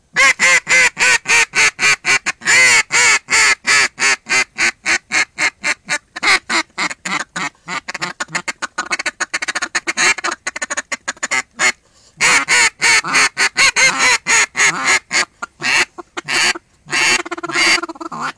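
Two olive-wood duck calls with acrylic inserts, mouth-blown together in fast runs of loud quacks, several a second, with two brief pauses.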